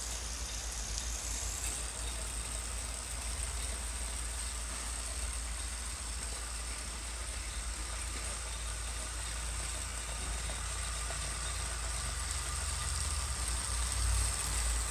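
Wahoo Kickr18 direct-drive smart trainer running as a rider pedals, a quiet steady whir with a low hum and a thin, high, steady whine over it.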